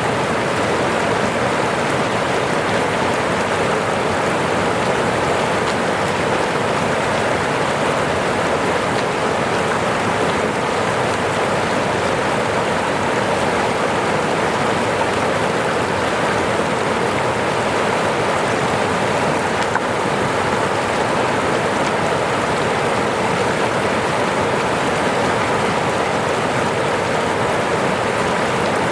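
Falling water rushing and splashing in a steady, unbroken hiss, like a small waterfall.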